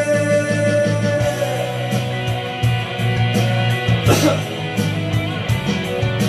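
Instrumental rock-ballad backing track with guitar over a steady beat, the vocal line left empty. About four seconds in a single cough sounds over it, from a singer clearing an itchy throat.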